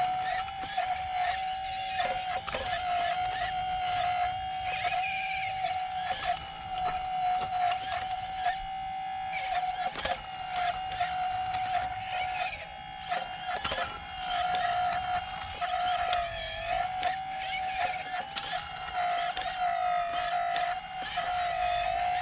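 Small electric hydraulic pump motor of an RC excavator whining steadily, its pitch dipping briefly several times.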